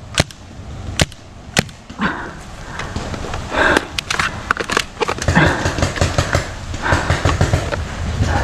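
Paintball markers firing, three sharp single shots in the first two seconds, then a busier stretch of rapid pops and clatter.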